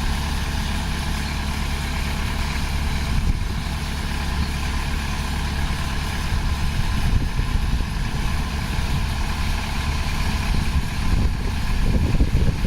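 Diesel engine of heavy earthmoving equipment running steadily, low and even like an idle; a rougher low rumble joins near the end.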